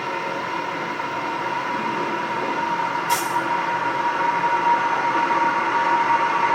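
Toilet flush water running steadily, with a whistling tone over the rush of water, growing slightly louder. A brief sharp hiss comes about three seconds in.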